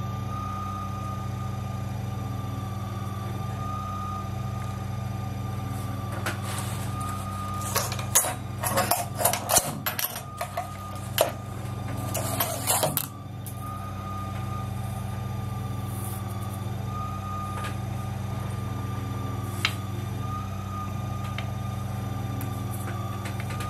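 Stepper motor driving a CNC milling machine's Y-axis table during homing, slowly searching for the linear encoder's index pulse: a steady electrical hum and whine with a faintly wavering higher tone. Between about eight and thirteen seconds in, a run of sharp clicks and rattles sounds over it.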